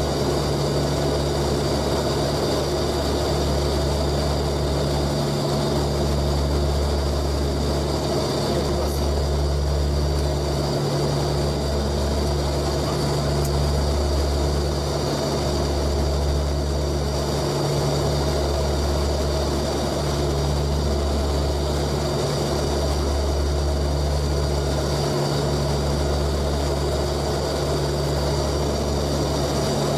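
Antonov An-12's four turboprop engines heard from inside the cockpit in flight, climbing out after takeoff: a steady deep propeller drone whose low hum swells and dips in a slow beat every few seconds.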